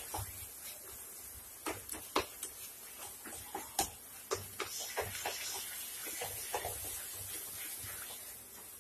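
A spatula stirring and pressing a thick mash of grated bottle gourd and khoya in a non-stick kadhai, giving irregular knocks and scrapes against the pan, over a steady faint hiss.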